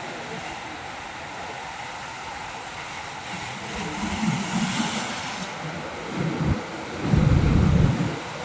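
Ocean surf washing over a rocky shore: a steady hiss of water, with a wave surging in about halfway through. Low rumbling comes in surges toward the end, loudest about a second before it ends.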